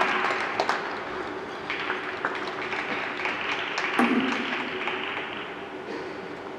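Audience applauding in an ice rink, the clapping thinning out and fading, with a brief voice from the stands about four seconds in.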